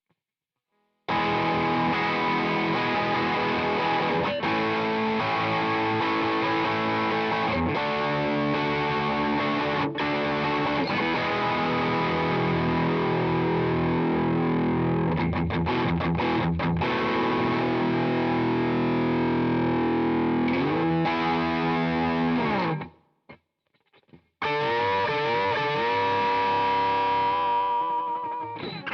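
Electric guitar played through the ZOOM G2X Four multi-effects pedal's Fender Tone Master B-channel amp model at high gain, giving a heavily distorted tone with long sustained notes and chords. About three-quarters of the way through the notes slide down and stop for about a second, then playing resumes with bent notes.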